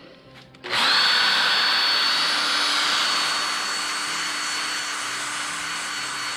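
A cordless drill with a brush attachment starts about a second in and runs steadily with a high whine, scrubbing a moped's cast wheel rim. The sound eases off a little after a few seconds.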